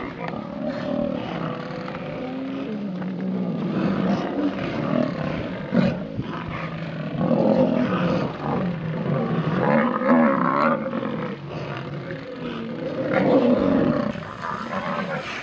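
Lions growling and snarling, with several louder swells, the loudest near the end.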